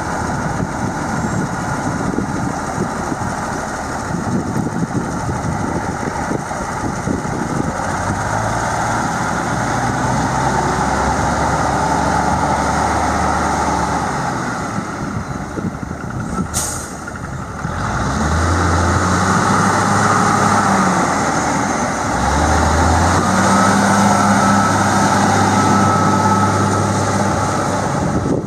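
The Cummins six-cylinder diesel engine of a 1977 International Transtar grain truck running. Its note sags a little past halfway, with one short sharp noise, then picks up again in two steps to a steady hum.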